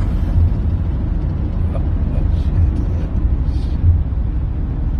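Steady low rumble of a car in motion, road and engine noise heard from inside the cabin, with a few faint rustles.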